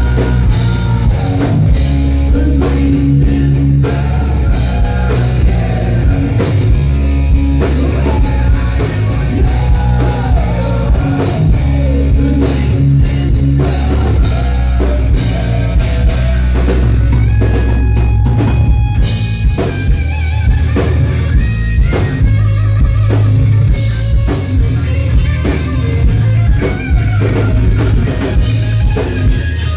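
Live hard rock band playing loud: distorted electric guitar over a drum kit and bass guitar, recorded from the crowd.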